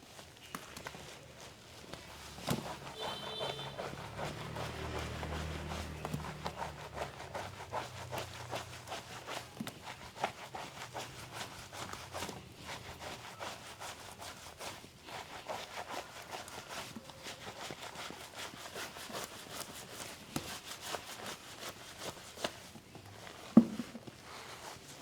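Hands working over skin during a massage: steady rubbing with many small irregular taps and pats, and one sharper knock near the end.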